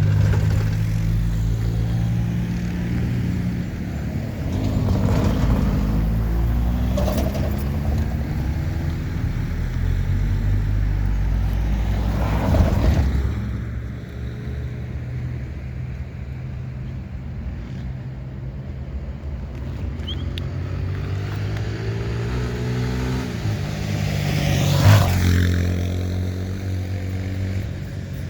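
Diesel locomotive engine running, a steady low hum whose pitch shifts a few times, with louder swells about halfway and near the end.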